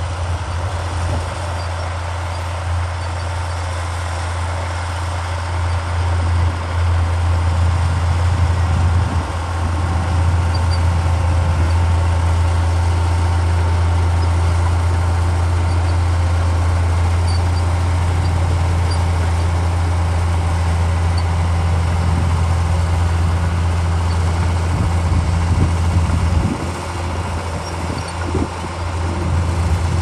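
Komatsu D53P crawler bulldozer's diesel engine working under load as the blade pushes soil, a steady low drone. It grows louder after several seconds, eases off near the end and picks up again.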